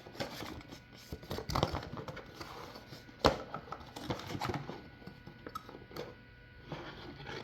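Light handling noises: scattered clicks and knocks, one sharper knock about three seconds in, over a faint steady background.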